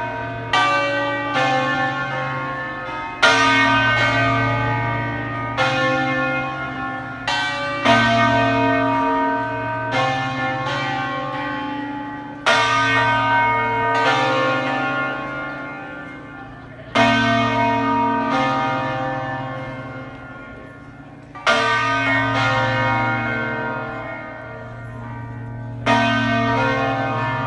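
Church bells ringing the midday bells. Each stroke sets off a rich, long ringing decay. The strokes come a second or two apart at first, then space out to about one every four and a half seconds in the second half.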